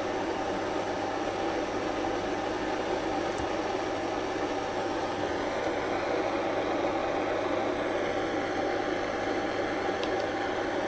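Hot air gun running steadily with an even fan-driven rush and a low hum, blowing heat onto a piece of plastic pipe to soften it for bending.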